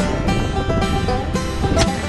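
Background music: a country or bluegrass-style tune with plucked strings and a steady beat.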